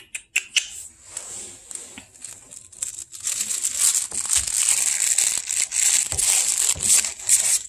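Crinkling and rustling from a plush toy being shaken and waved at puppies, with scattered light clicks at first and a steady loud rustle from about three seconds in.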